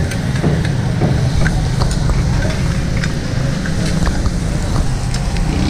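Mutton frying in a karahi: sizzling, with irregular clinks and scrapes of a metal ladle stirring, over a steady low rumble.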